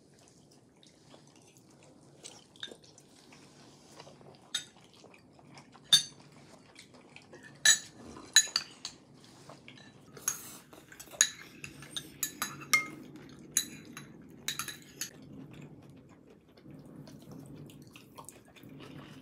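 Chopsticks and tableware clinking against ceramic bowls and plates during a meal: a string of sharp, ringing clinks, busiest from about six to fifteen seconds in.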